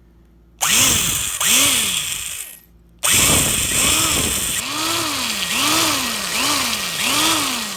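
Corded electric power drill drilling into a die-cast Hot Wheels car, run in two bursts. The motor speed repeatedly rises and falls as the trigger is worked and the bit digs into the metal.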